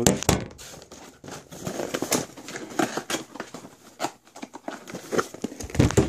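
A cardboard box being handled: flaps scraping and crinkling as they are forced shut, with scattered knocks. Strong thumps near the start and near the end come from the camera being set down and picked up.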